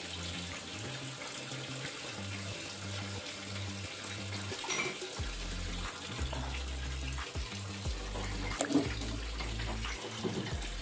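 Water boiling in a pot on a gas stove, a steady bubbling hiss, with a few brief light plops and knocks as sweet potato slices go into the pot.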